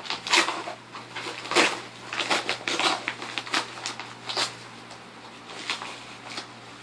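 Yellow paper mailer envelope being torn open by hand: a run of irregular rips and paper crinkles, thinning out and getting quieter over the last couple of seconds.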